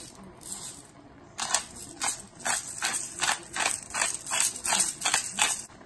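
Hand-held pepper mill grinding black pepper: a quick, even run of gritty crunching strokes, about three a second, starting a little over a second in and stopping just before the end.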